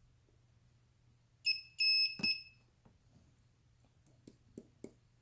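Portable mini spot welder beeping: three short high beeps in quick succession, with a sharp snap among them as a weld pulse fires on the nickel strip. A few light clicks follow near the end.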